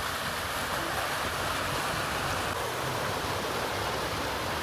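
A van driving through deep floodwater, its wheels churning up a steady rushing wash and spray of water.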